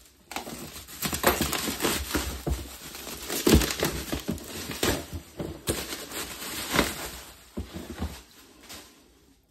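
Bubble wrap and plastic packaging being pulled off a cardboard kit box and crumpled by hand: irregular crinkling and rustling, loudest about three and a half seconds in and dying away near the end.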